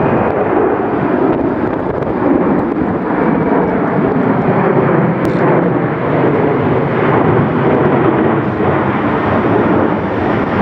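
Boeing 737 jet airliner passing low overhead, its twin jet engines making a loud, steady roar.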